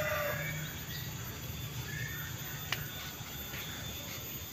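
Quiet outdoor ambience: a steady low hum with a faint short bird chirp about two seconds in and a small click a little later.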